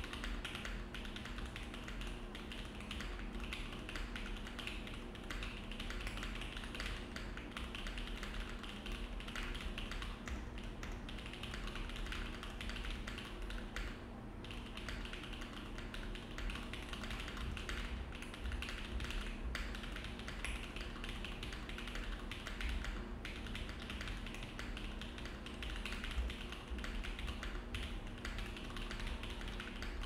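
Continuous fast typing on a Think6.5 V3 65% custom mechanical keyboard with an aluminium plate, plate and case foam and the tape mod: a dense run of deep, muted key strikes, a 'thock'. There is a brief lull about 14 seconds in.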